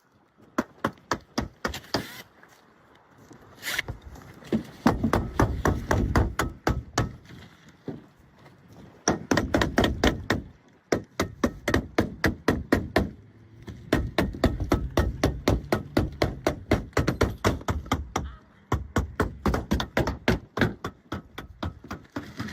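Roof shingles being nailed down: a rapid series of sharp nailing strikes, several a second, in runs broken by short pauses.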